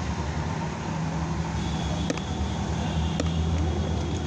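Steady low hum of street traffic and engines, with two sharp clicks partway through.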